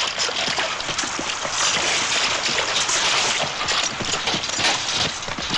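Several people running through a rocky mountain stream: quick, irregular splashing footsteps over the steady rush of water.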